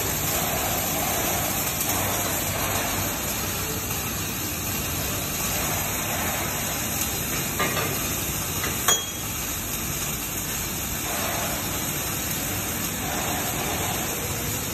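Robotic arc welding on square tube: the steady crackling hiss of the welding arc, with two sharp clicks a little past the middle.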